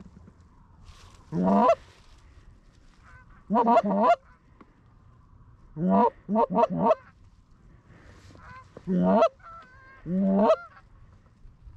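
Canada goose calls blown by hunters: loud, close honks and clucks in five bursts, each note breaking sharply upward in pitch, with a quick run of about four clucks in the middle. Fainter honks from geese further off come in between.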